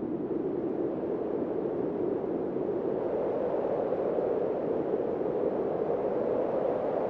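Wind blowing over a field of ripe cereal: a steady, low rushing hiss that slowly swells and rises a little in pitch.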